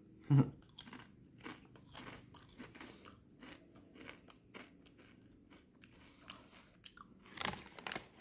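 Close crunching and chewing of Sun Chips multigrain chips, irregular small crunches with louder ones about half a second in and near the end.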